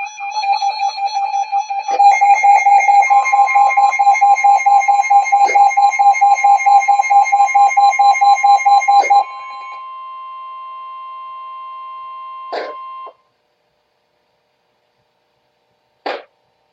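Emergency alert tones announcing a flash flood warning: a rapid, loud electronic beeping alarm, joined about three seconds in by a steady warning tone. The beeping stops after about nine seconds and the steady tone carries on alone, quieter, until it cuts off suddenly, followed by a single click near the end.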